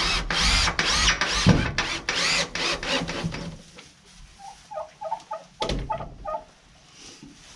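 Cordless drill driving screws into a wooden board on a plywood wall, run in quick trigger bursts that spin up and down, about four a second, for the first few seconds. About five seconds in come half a dozen brief low-speed pulses as the screw is seated.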